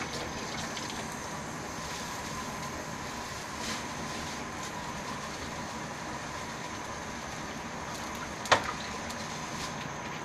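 Steady hum and hiss with a faint high whine, and one sharp click about eight and a half seconds in.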